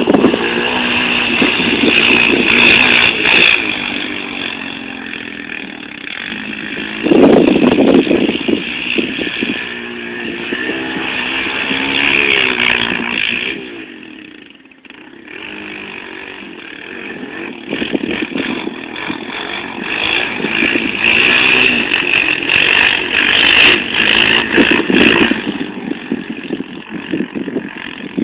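Quad (ATV) engine revving hard and backing off again and again, its pitch climbing and falling as it is ridden around the dirt lot; it drops away for a moment about halfway through and then comes back loud.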